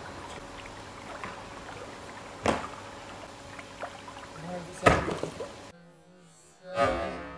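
Plastic pipe of a homemade dry ice cannon being handled and stood upright on its base: two sharp knocks about two and a half seconds apart, the second the louder, over a steady hiss. Near the end a short rush of hissing noise.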